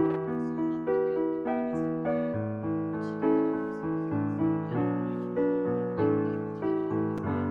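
Background piano music: a gentle melody of single notes over held lower notes, a new note about every half second.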